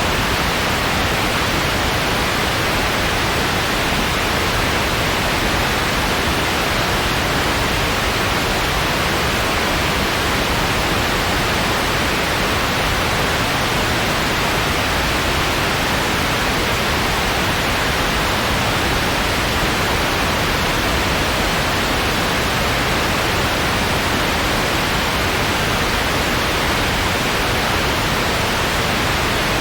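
Steady white noise: an even, unchanging hiss with no rhythm or change.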